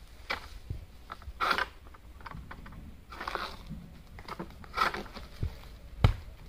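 Long-poled oil palm harvesting sickle (egrek) pulled through the base of a palm frond in short rasping cutting strokes, about one every one to two seconds. A single sharp knock near the end is the loudest sound.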